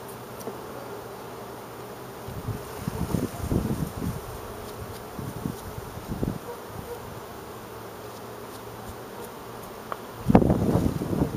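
Carniolan honey bees buzzing around an open hive as honey frames are lifted out and brushed. Louder bursts of handling noise come a few seconds in and again midway, and the loudest comes near the end.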